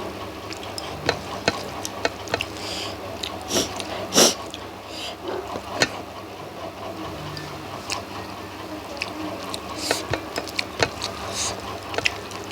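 Mukbang eating sounds close to the microphone: irregular wet chewing, lip smacks and small clicks, the loudest about four seconds in, over a faint steady hum.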